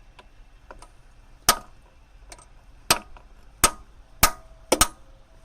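About six sharp metal-on-metal hammer blows on a bolt braced against a ZMZ-405's hydraulic timing-chain tensioner, with faint taps before them and a quick double blow near the end. The blows are knocking the recharged tensioner's plunger out so that it springs out and tensions the timing chain.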